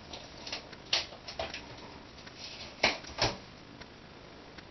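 Small sharp clicks and taps from hands handling a laptop LCD panel and its display cable connector, the two loudest coming close together about three seconds in.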